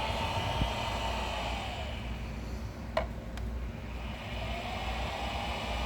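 The soldering fume extractor's twin fans whirring, their pitch and level falling over the first couple of seconds as they are turned down on the variable-speed control, then rising again from about four seconds in as they are turned back up. A sharp click about three seconds in.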